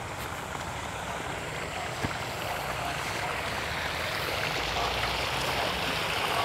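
Water gushing steadily from a hose outlet into a fish pond, a rushing noise that grows slowly louder.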